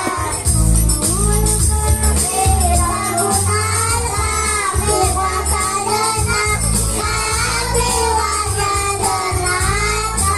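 A voice singing a melody over live accompaniment, with heavy bass notes and a steady tambourine jingle.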